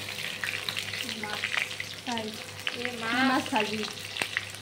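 Pieces of fish sizzling as they shallow-fry in hot oil in a wok, with a metal spatula scraping and clicking against the pan as they are turned.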